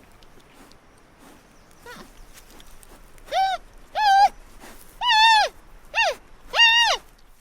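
An animal calling five times in short, clear calls, each rising and then falling in pitch, after one faint call.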